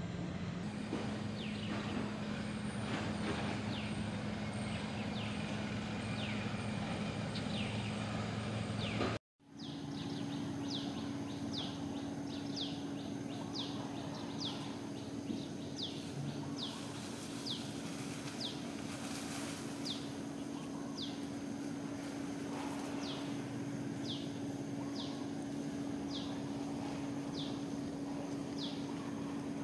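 Outdoor ambience with a steady low hum and a brief dropout about nine seconds in. After the dropout, a short, falling, high chirp repeats about once a second over the hum.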